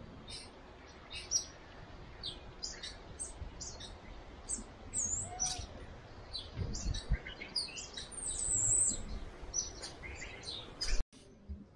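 Small birds chirping and tweeting in many short, high calls, with a longer high call about eight to nine seconds in. The sound drops out abruptly for a moment near the end.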